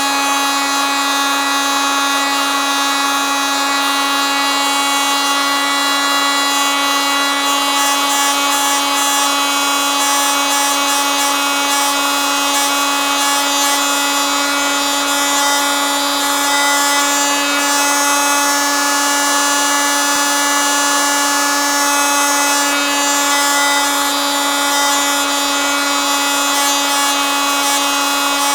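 Oscillating multitool running continuously: an unbroken buzzing whine that holds one constant pitch and level throughout.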